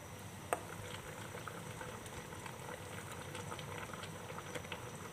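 Chicken simmering in a spiced, turmeric-yellow liquid in a stainless steel pot, bubbling with a steady patter of small pops. One sharp click about half a second in.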